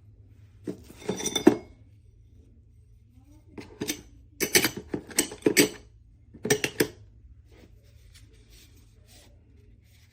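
Hard plastic and metal parts of a hair straightener clicking and clattering as it is handled, in four short bursts of clicks over a faint low hum.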